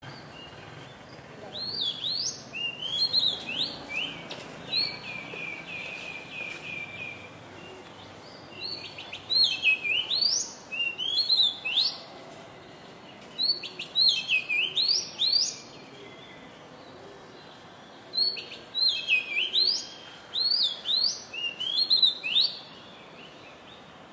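Oriental magpie-robin singing: four bouts of clear whistled phrases made of rising and falling notes, with pauses of one to three seconds between them. The first bout ends in a run of quick repeated notes, about three a second.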